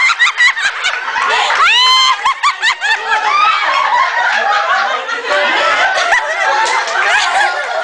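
A group of adults laughing loudly together, many voices overlapping in bursts, with a high rising squeal about two seconds in.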